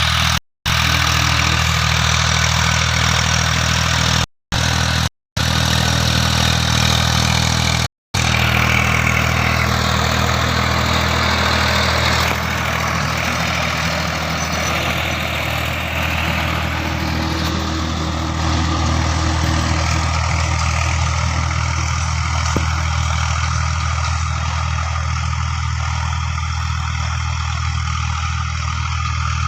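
Old tractor engine running steadily at idle, with an even low throb. The sound cuts out completely for a moment four times in the first eight seconds, then settles slightly quieter about twelve seconds in.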